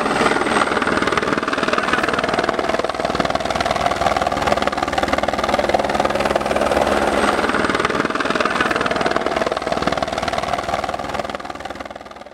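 Helicopter running close by: a steady rush of engine and rotor noise with a fast, even beat of the blades. It fades away near the end.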